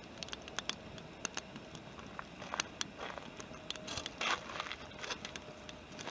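Wood campfire crackling, with irregular sharp pops and a couple of brief louder hissing flare-ups.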